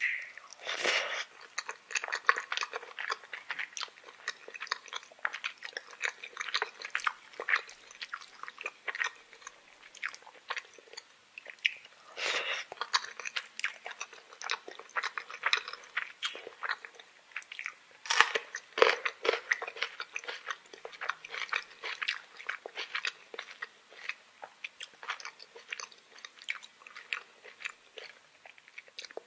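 Close-up eating sounds: metal spoons clicking and scraping against plates of rice, mixed with chewing, as a dense patter of small clicks with a few louder clacks.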